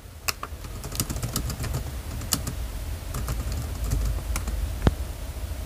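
Typing on a computer keyboard: irregular key clicks, the loudest near the end.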